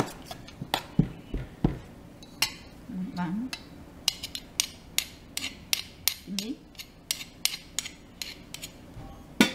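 Metal spoon knocking and clinking against a stainless steel colander as steamed mung beans are pounded to break them up. The clinks come thick and fast in the second half.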